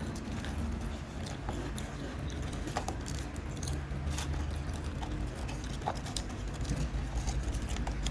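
Mister Potato ghost pepper crisps being bitten and chewed: irregular dry crunches, over a low steady hum.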